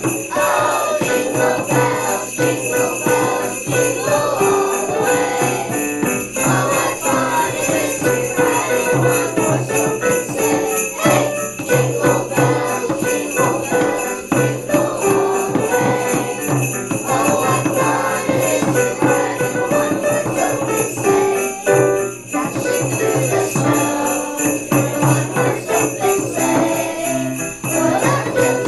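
A children's class performing a Christmas song with upright piano, bells jingling steadily throughout and a few hand-drum strokes.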